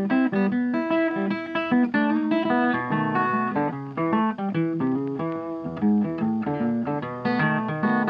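Background music: a guitar picking a quick run of notes.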